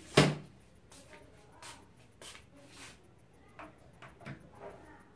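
A sharp knock about a fifth of a second in, then scattered light clicks and taps of a screwdriver being set to the screws of an LED TV's plastic back cover.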